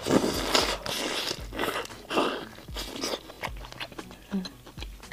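Close-miked biting and chewing of a large black tiger prawn, with loud crunching bites through the first three seconds, then softer chewing.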